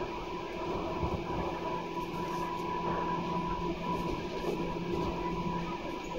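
JR Kyushu 811 series electric train running at a steady speed, heard from inside the car: the steady hum of its externally fan-cooled traction motors over the rolling noise of the wheels, with one short knock at the very end.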